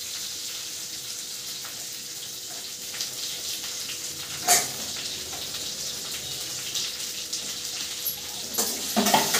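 Hot oil sizzling steadily in a steel kadai as sliced onions are pushed into the tempering. A single sharp metal clink about halfway through, and a few lighter clatters near the end.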